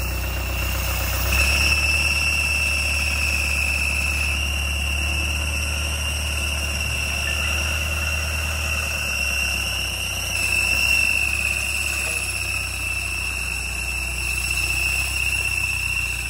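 Mahindra Bolero pickup's engine running with a steady high-pitched squeal over it that shifts slightly in pitch a few times, the sound of a failing clutch release bearing.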